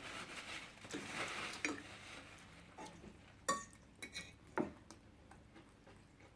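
Eating sounds at a table: a soft rustle of food in the first couple of seconds, then a few sharp clinks of dishes. The loudest clink comes about three and a half seconds in and rings briefly.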